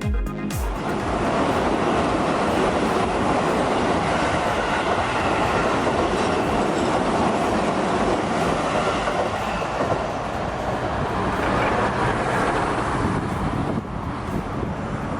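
Keio Line electric train passing close by: a steady rumble of wheels on the rails that dies down near the end.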